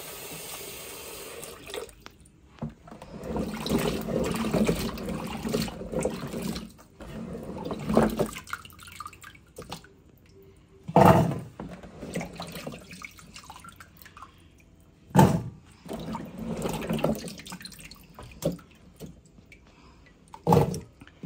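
Tap water runs steadily into a plastic bowl for the first couple of seconds. Then hands swish and rub cut eddo pieces in the water to wash them, with irregular splashing and a few sharp, louder sloshes.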